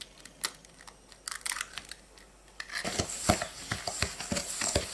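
A few faint clicks as an egg is pulled open over a stainless steel bowl, then, from about three seconds in, a plastic spatula stirring the egg into granulated sugar, with rapid gritty scraping and tapping against the metal bowl.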